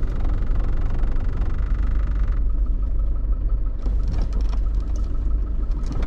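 Land Rover Discovery 1 driving slowly over a rough farm track, heard from inside the cab: a steady low engine and drivetrain rumble.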